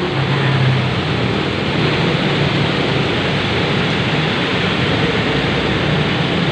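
Steady hiss of a heavy downpour, mixed with tyres of passing cars and vans swishing on the flooded road and their engines running.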